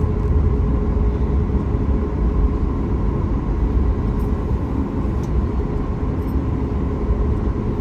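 Steady cabin noise of a Boeing 737 MAX 8 with its CFM LEAP-1B engines running: a loud, even rumble with two steady tones above it.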